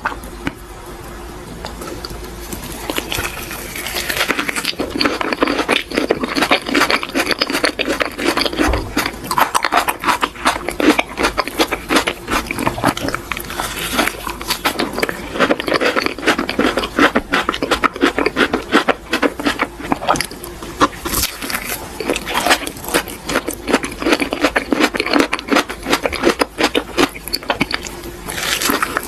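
Close-miked eating of a soft purple cream-filled roll with chocolate sandwich cookies inside: sticky, wet chewing sounds full of small clicks and crackles, starting a few seconds in and going on steadily.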